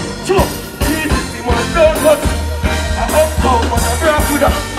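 Live dancehall music played loud through a stage sound system: a male vocalist singing and chanting into a microphone over heavy bass and a steady drum beat.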